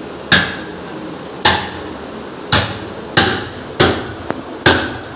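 A cleaver striking the lid of a tin of coconut milk to cut it open: about seven sharp metal-on-metal knocks, unevenly spaced half a second to a second apart.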